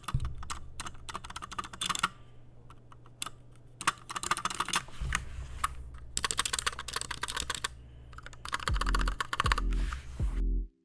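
Typing on a Royal Kludge RK71 mechanical keyboard: quick runs of key clacks with short pauses between bursts. Background music with a low bass line plays underneath and comes up louder near the end.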